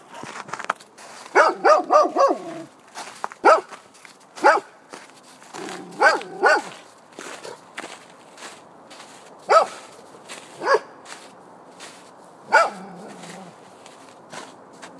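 Golden retriever barking: a quick run of four barks about a second and a half in, then single barks every second or few, eleven barks in all, stopping a couple of seconds before the end.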